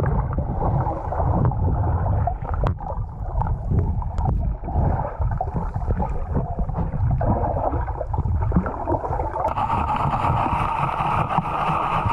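Water heard through a submerged action camera: a muffled, low churning rumble with scattered small clicks of shell and gravel. About nine and a half seconds in, a steadier hiss joins as the mesh sifting basket works through the shell bed.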